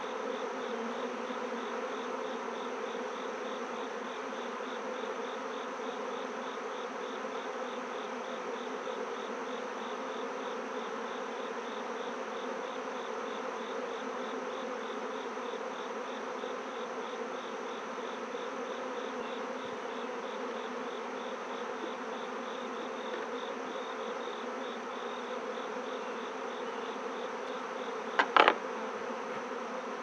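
Steady buzzing hum of a honeybee colony from an opened hive with its frames being handled. Near the end, a brief pair of sharp knocks sounds over the hum.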